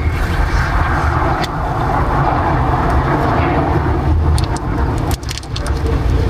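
Street traffic noise: a steady low rumble, with a passing vehicle's hiss swelling through the first few seconds and fading, then a few sharp clicks.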